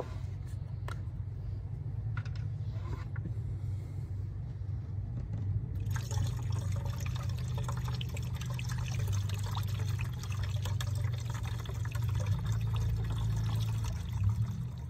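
Pre-diluted coolant poured from a plastic gallon jug through a funnel into a truck's coolant reservoir: a steady stream of splashing liquid starting about six seconds in and running until just before the end, after a few light handling clicks of the jug. A steady low rumble sits underneath throughout.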